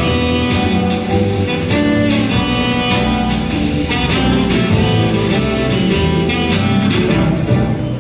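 Loud dance music playing.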